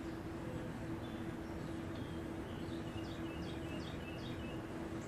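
A small bird chirping a quick run of five or six short falling notes in the middle, over a steady low background hum.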